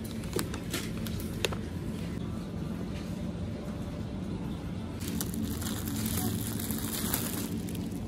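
Supermarket ambience: a steady low hum, with a few sharp crinkles and clicks from a plastic bakery bag being handled in the first couple of seconds. The background hiss grows brighter about five seconds in.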